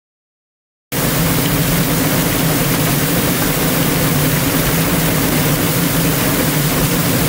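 Waterfall: a steady, loud rush of water pouring over rock, cutting in abruptly about a second in after silence.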